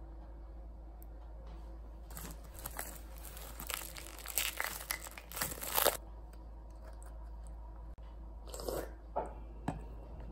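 Foil lid of a Yakult bottle being peeled and crinkled: a dense run of crackling and tearing for about four seconds, then a shorter rustle and a sharp tap near the end, over a faint low hum.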